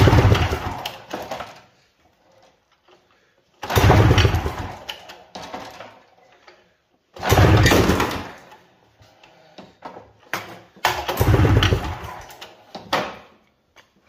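Rotax 377 two-stroke twin pulled over by its recoil starter rope four times, about three and a half seconds apart. Each pull spins the engine briefly and dies away. It is being cranked for a wet compression test with a gauge in one plug hole, and the engine comes up short of its 150 psi spec, which the owner puts down to rings that need replacing.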